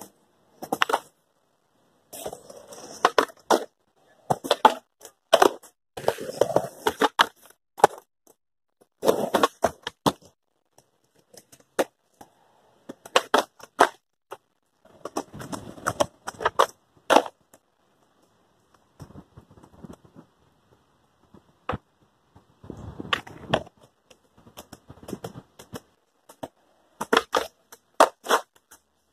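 Skateboard tricks on concrete: sharp pops and clacks of the board's tail and deck hitting the ground, with brief rolling of the wheels between, in short bursts separated by abrupt silences.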